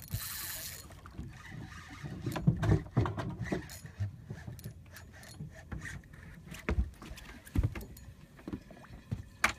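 Water lapping and slapping against a small boat's hull, with irregular knocks and thumps. A short burst of hiss comes at the very start.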